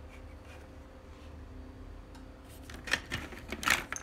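Hard plastic shell parts of a replica pulse rifle being handled and knocked together: a quick cluster of clicks and rattles near the end.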